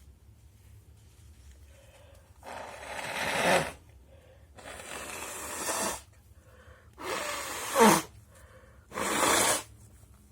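A person blowing their nose hard four times in a row, each blast a rushing hiss of air about a second long. The third blast ends in a sharp honk.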